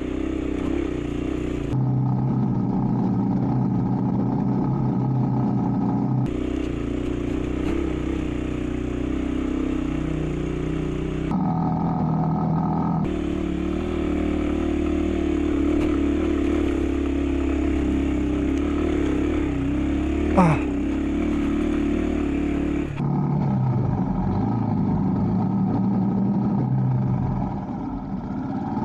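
Motorcycle engine running steadily under load, its sound shifting abruptly several times, with a brief sharp rise and fall in pitch about twenty seconds in.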